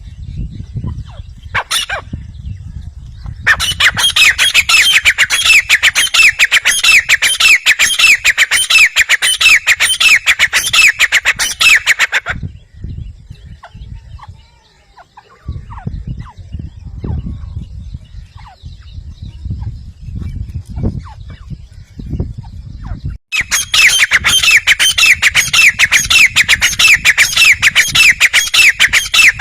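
Grey francolin calling loudly in two long bouts of rapidly repeated, ringing notes, with a pause of about ten seconds between them filled by a low rumble.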